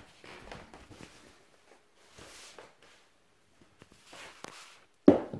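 Border collie puppies scuffling and pawing over clothing and a wooden floor: scattered rustles and soft scrapes, with one sudden loud bump near the end.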